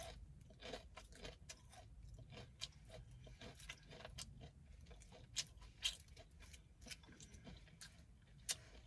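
Faint chewing of crispy fried chicken, a run of small crackling crunches with a few sharper clicks about halfway through and near the end.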